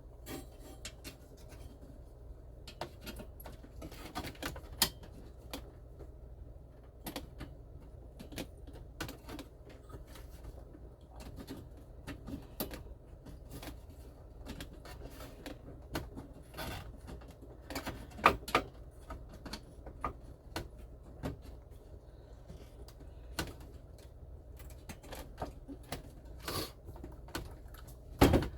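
Scattered light clicks, taps and knocks of hand tools and small metal parts being handled during dashboard work, with a sharper knock about 18 seconds in, over a low steady hum.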